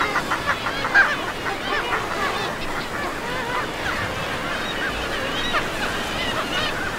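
A group of birds calling: many short chirps and squeaks overlapping, with one louder call about a second in, over a steady wash of water.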